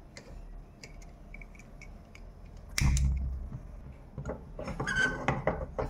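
Handling of a gas stove and a metal wok: small clicks at the burner knob, one louder thump a little under three seconds in, then a few light knocks and clicks with a brief metallic ring near the end.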